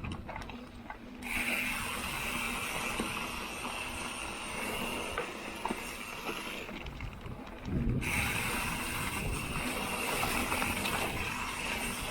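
Mountain bike rear freehub buzzing while the bike coasts, a steady high-pitched ratchet whir. It starts about a second in, stops for about a second and a half past the middle, then resumes.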